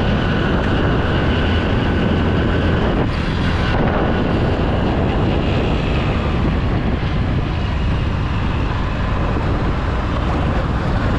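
Hero Splendor Plus motorcycle's single-cylinder four-stroke engine running steadily at road speed, mixed with wind buffeting the microphone.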